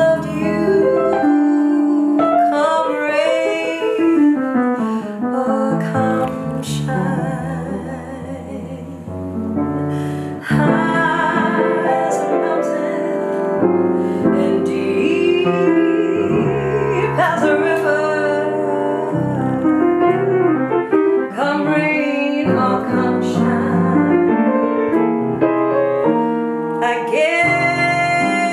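Grand piano playing a slow jazz ballad, with a woman singing over it in places; the playing softens for a couple of seconds near the middle, then comes back fuller.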